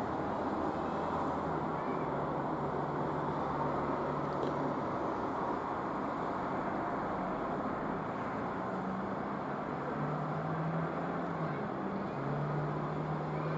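Steady outdoor background noise with a low, level hum that drops out and returns at a slightly different pitch a few times, typical of road traffic.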